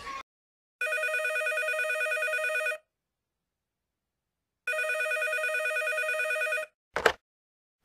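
Telephone ringing twice, each ring a warbling trill about two seconds long with a pause of about two seconds between, then a short clunk near the end as the handset is picked up.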